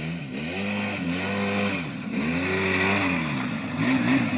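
Quad bike (ATV) engine revving up and down over and over, its pitch rising and falling roughly once a second, with a few sharp knocks near the end.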